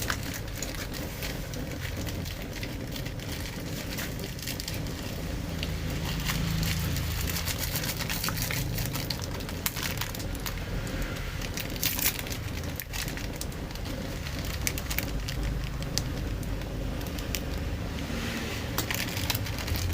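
Continuous crunching and crinkling: many small irregular crackles over a low rumble.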